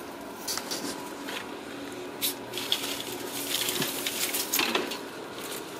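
Kittens playing with a pulled-down artificial plant: irregular rustling and crackling of its plastic leaves and stems, with small knocks, busiest in the second half. A faint steady hum runs underneath.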